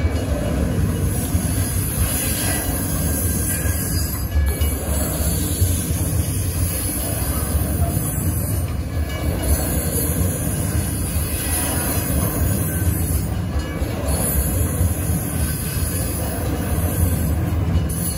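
Freight train hopper wagons rolling past over the level crossing: a steady low rumble of wheels on rail.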